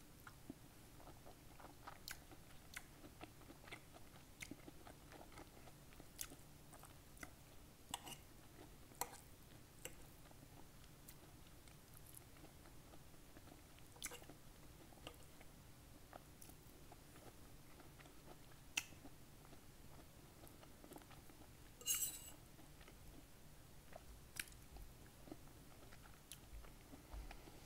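Close-miked chewing of a mouthful of sautéed collard greens: soft, wet mouth sounds with many scattered sharp clicks, the loudest about 22 seconds in.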